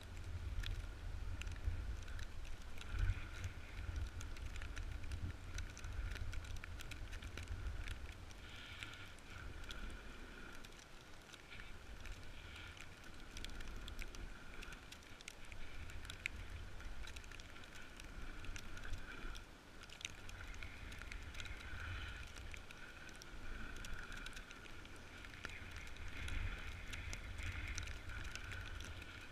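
Wind buffeting the microphone with a heavy, gusting rumble, over the steady scraping hiss of a snowboard sliding across snow, with scattered small ticks and clicks.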